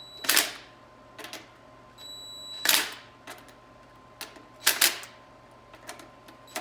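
Impact wrench giving short taps to snug down the 13 mm bolts of a 4L60E transmission pump: three brief bursts of hammering about two seconds apart, with a faint high whine before the first two and smaller clicks in between.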